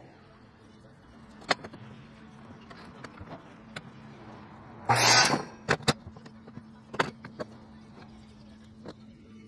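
2x4 construction lumber being handled on a wooden work table: several sharp wooden knocks, and about five seconds in a loud half-second scrape as a board is slid along. A steady low hum runs underneath.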